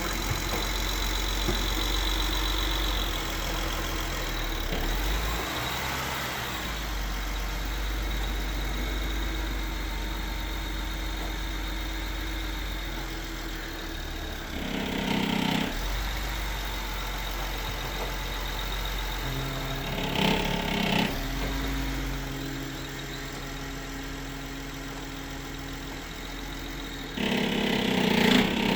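BMW 535i straight-six engine running at low rpm while the car pulls away in gear on almost no throttle, with a rattle under load. Three short, louder bursts of noise stand out over the steady engine hum, about halfway, about two-thirds of the way through and near the end. The rattle comes only under load at low engine speed.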